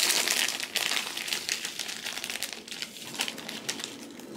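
Thin clear plastic bag crinkling as it is handled and tipped to shake dark brown sugar into a glass bowl, loudest in the first second or so and then softer.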